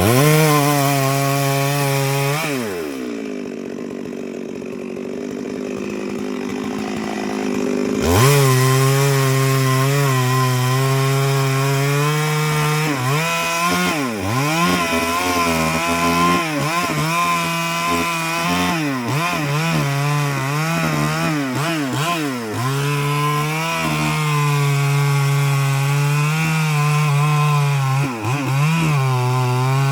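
Two-stroke chainsaw revved, dropping back to idle for a few seconds, then opened up again about eight seconds in and held at high revs while cutting wood. Its pitch sags and recovers repeatedly as the chain is loaded in the cut.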